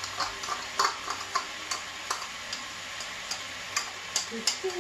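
A spoon scraping and tapping inside a small cup while scooping crushed tomatoes into a pan, giving irregular sharp clicks about every half second. A steady sizzle from the frying pan runs underneath.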